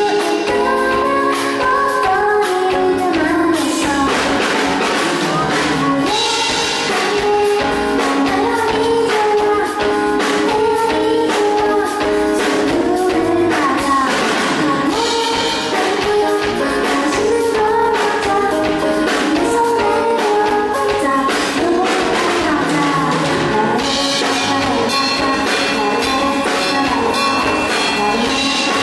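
A woman singing a song live into a microphone, accompanied by a Yamaha S90 ES keyboard.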